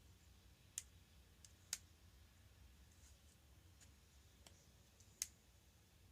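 A handful of small, sharp plastic clicks at irregular intervals, from a Samsung Galaxy Tab 3's plastic housing being pressed and snapped shut over the new screen. There are about four clear clicks and a couple of fainter ones over a quiet background.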